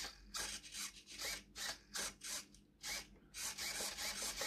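RC steering servo of a 1/14 Tamiya King Hauler truck whirring in short rasping bursts, two or three a second, some with a brief rising whine, as the steering is worked back and forth from the transmitter.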